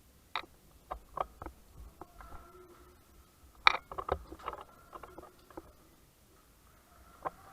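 Irregular sharp clicks and taps from an airsoft game: gear and movement or distant airsoft shots. There is a denser cluster about four seconds in, and faint held tones in the background.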